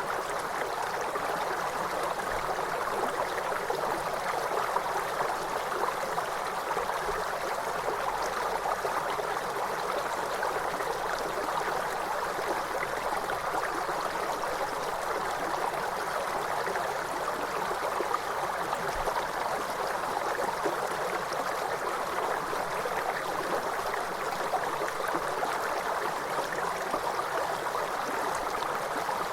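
River water flowing, a steady rushing and babbling that holds even throughout.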